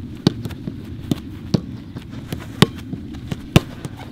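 Footballs being struck on a training pitch: irregular sharp thuds of kicks and passes, two or three a second, the loudest about two and a half and three and a half seconds in.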